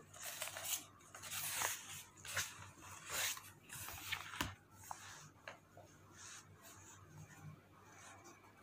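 Paper rustling as a notebook page is turned and smoothed flat: a series of short rustles and scrapes, with a sharp tap about four and a half seconds in, then quieter handling.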